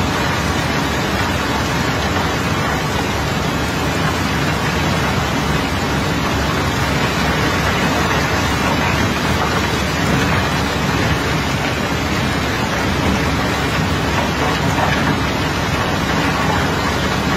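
Steady rushing, rattling noise of iron ore sliding down a wet steel chute as the barge is unloaded, holding at an even level throughout.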